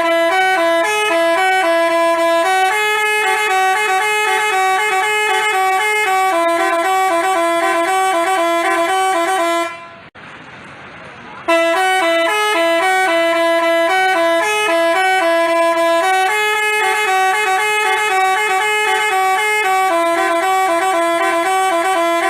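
Telolet basuri musical bus horn playing a melody of quick stepped notes. It breaks off about ten seconds in for a second and a half, then starts the tune again.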